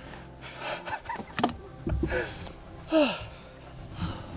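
Short, breathy hushed voices of people, several quick exhalations or whispered exclamations whose pitch falls, along with rustling and a couple of low thumps as they move through the forest.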